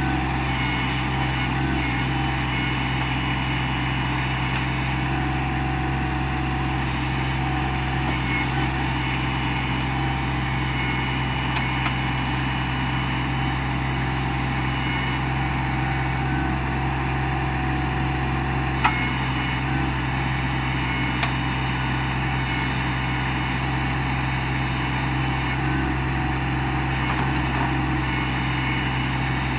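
John Deere 2025R compact tractor's three-cylinder diesel engine running steadily at constant throttle while it works its 270A backhoe, with a single sharp clank about two-thirds of the way through.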